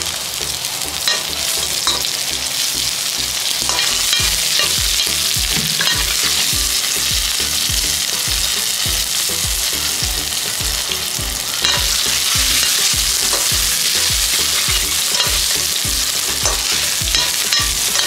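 Sliced onion, curry leaves and hot pepper sizzling steadily in hot oil in a stainless steel wok, stirred with a metal slotted spoon that clicks and scrapes against the pan now and then.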